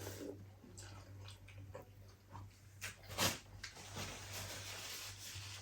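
Close-up eating sounds: chewing and small mouth smacks and clicks, with one louder sharp click about three seconds in.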